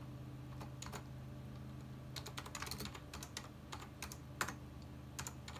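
Keys typed on a computer keyboard, irregular clicks in short runs that bunch up in the middle, as a shell command is entered. A steady low hum runs underneath.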